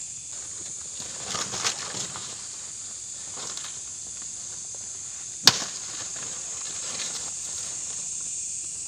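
Steady high-pitched night chorus of crickets, with a stretch of rustling about one to two seconds in and a single sharp click about five and a half seconds in, the loudest sound.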